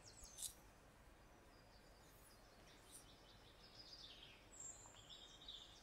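Faint forest birds chirping in a recorded nature ambience, with a few short falling calls about four seconds in.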